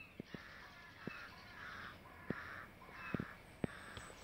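A bird cawing in a quick run of about six harsh calls, each about half a second long, with a few light knocks in between.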